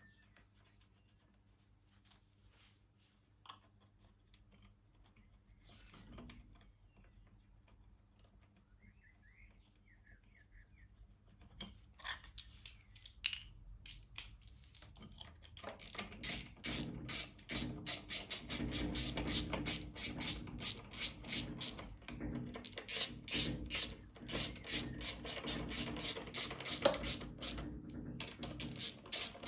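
Rapid clicking and rattling of hand tools and small metal parts on a lawn mower being reassembled. It starts sparse about twelve seconds in and becomes dense and continuous from about sixteen seconds, over a faint steady low hum.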